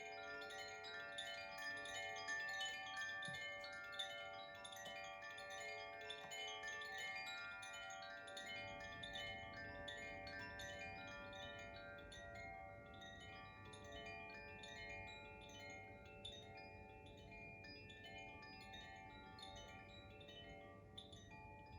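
Koshi chimes being played: a continuous shimmer of many overlapping, ringing tuned notes, struck again and again, thinning out somewhat in the second half.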